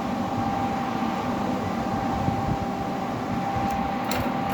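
Electric fishing machine inverter running steadily during a current test: a continuous electrical hum with a constant whine, and a few sharp clicks near the end.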